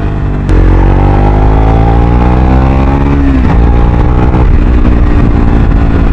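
Triumph Speed 400's single-cylinder engine through a Muff City slip-on exhaust, with a bassy note, accelerating hard. The throttle opens about half a second in, the pitch climbs for about three seconds, drops at a gear change, then climbs again.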